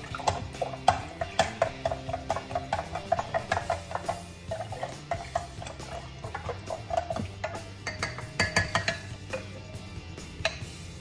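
Wooden spoon stirring lime water and chia seeds in a glass pitcher, knocking against the glass in a quick run of clicks, about three a second, then again in a short cluster near the end. Background music plays under it.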